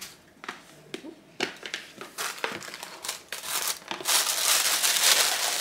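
Tissue paper rustling and crinkling as a gift box is unwrapped. It comes in scattered short rustles at first, then turns continuous and louder from about four seconds in.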